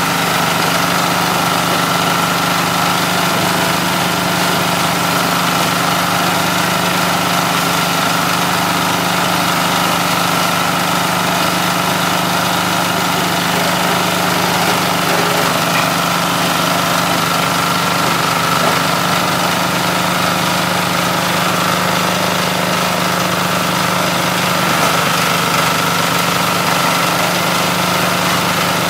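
Small single-cylinder engine running steadily at constant speed, driving a coconut-frond shredder.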